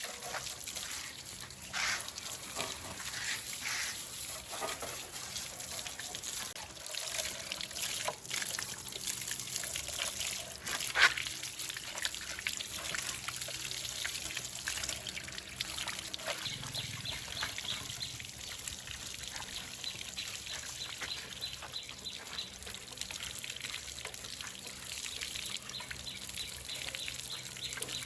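Water trickling, with scattered small clicks and knocks and one sharp knock about eleven seconds in.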